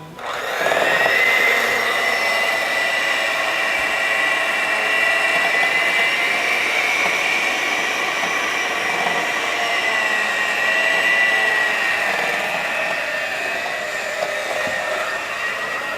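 Electric mixer switched on and whipping butter and powdered sugar into frosting, a steady motor whine with a slight drift in pitch.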